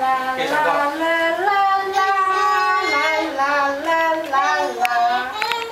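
A high voice singing a simple tune with long, steady held notes.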